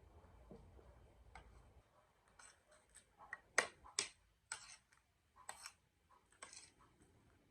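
Close-up mukbang eating sounds: a string of short, irregular crunching and clicking bursts as a mouthful of chatpate is chewed, loudest a little past the middle.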